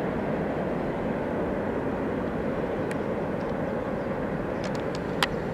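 Steady distant vehicle rumble with no rise or fall, and a few faint clicks near the end.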